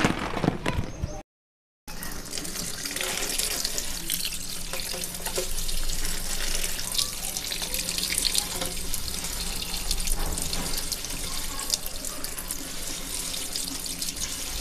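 A kitchen tap running steadily onto green chillies in a plastic colander in a steel sink as they are rinsed by hand. At the very start there is a brief clatter of chillies dropping into the colander, then a short break of silence before the water begins.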